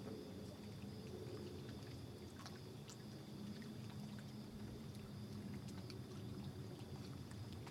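Faint steady background noise: a low rumble, a thin high steady hum, and a few soft scattered clicks.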